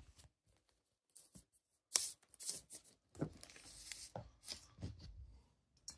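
Faint, scattered crinkling and small clicks of parts being handled, a clear plastic parts bag rustling among them, mostly from about two seconds in.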